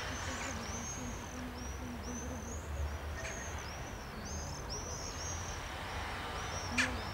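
A bird singing a continuous string of quick, high, arching chirps over a low rumble, with one sharp click near the end.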